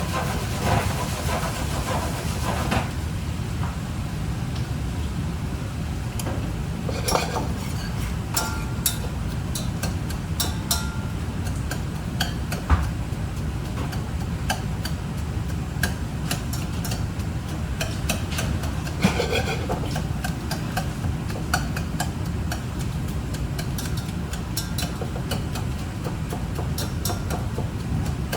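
Kitchen cooking sounds: irregular clinks and knocks of utensils over a steady low rumble.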